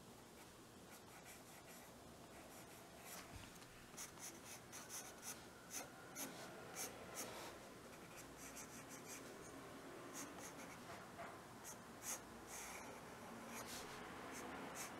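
Faint scratching of a soft graphite pencil on drawing paper: short shading strokes, coming about twice a second through the middle stretch and more scattered after.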